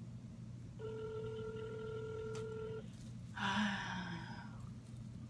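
Ringback tone from a phone on speakerphone: a single steady ring lasting about two seconds while the called line goes unanswered. About half a second after the ring stops comes a short, louder noisy sound.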